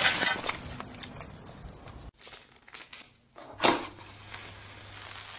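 A shovel digging into loose soil, with scraping and crunching dirt that fades over the first two seconds. After a short silence, a single brief scratch comes a little past the middle.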